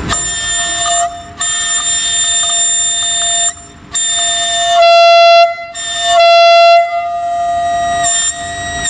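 Railway locomotive horn sounding in a series of long, steady blasts with short breaks between them. The blasts near the middle are the loudest.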